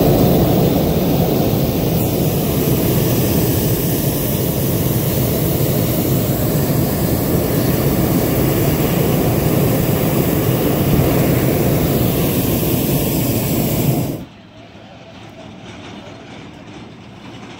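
Hot-air balloon's propane burner firing in one long, steady blast, cutting off sharply about fourteen seconds in and leaving a faint hiss.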